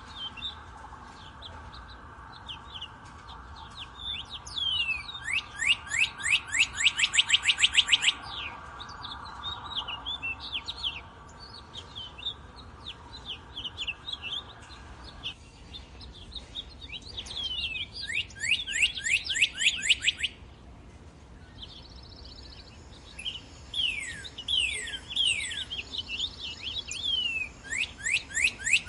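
Northern cardinal singing: three fast runs of down-slurred whistled notes, each a dozen or so notes in quick succession, with scattered shorter chirps between the runs. A faint steady hum lies underneath for the first half.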